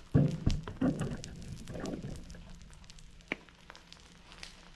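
Eggs frying in oil in a skillet, the fat crackling and popping with scattered sharp ticks, one louder pop a little past three seconds in. A few dull bumps in the first two seconds.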